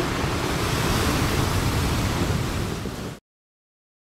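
Steady rushing of sea surf and wind, which cuts off abruptly about three seconds in.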